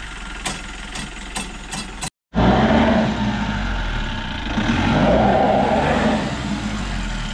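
Jeep engine running while the vehicle drives over a rough mountain track, with a quick series of sharp rattling knocks in the first two seconds. The sound cuts out briefly about two seconds in and resumes louder, the engine working harder around the middle.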